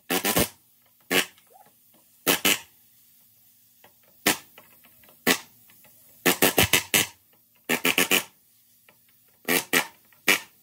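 Pneumatic air hammer setting rivets in a steel header bar, in about a dozen short bursts of rapid hammering, each under half a second, some in quick runs of three or four.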